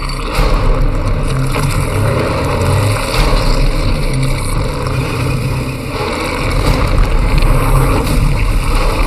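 Action-film sound mix of a heavy dump truck's engine running hard at highway speed, with a dense road-and-wind rumble and a few sharp metallic knocks.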